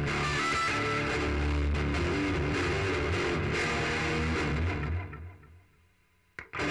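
Electric guitar tuned to drop D playing a riff that stops about five seconds in and dies away to near silence. A single click follows, then the riff starts again just before the end.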